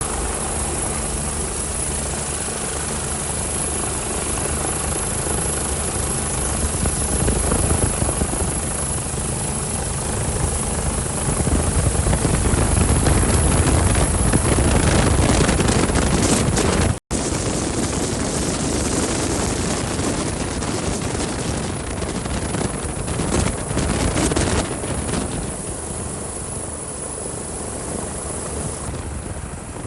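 Helicopter engine and rotor noise, steady and continuous, broken once by an abrupt cut about 17 seconds in.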